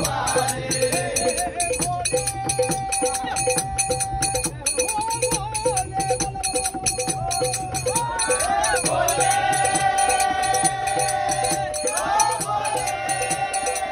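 Men singing a Marathi devotional bhajan in long held notes, with brass hand cymbals (taal) clashing in a steady rhythm over hand drums. The singing grows fuller from about two thirds of the way in.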